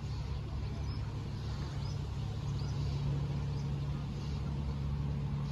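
Engine running steadily, a constant low drone with no change in speed.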